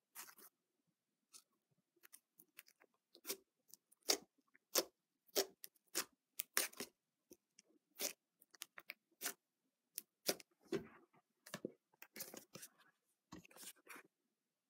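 Homemade slime of PVA glue, borax and shaving foam being kneaded by hand: quiet, irregular sticky clicks and squelches, about one or two a second.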